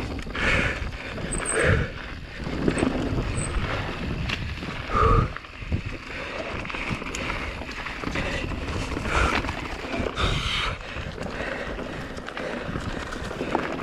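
A Giant Reign Advance full-suspension mountain bike descending a dirt trail at race pace, heard from a chin-mounted helmet camera: wind buffeting the microphone over the rolling tyres, with constant rattles and knocks from the bike over rough ground and a few short louder bursts.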